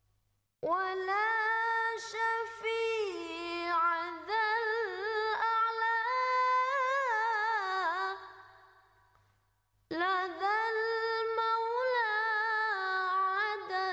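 Unaccompanied singing voice holding long, wavering melismatic notes in two phrases. The first fades away about eight seconds in, and the second begins about ten seconds in.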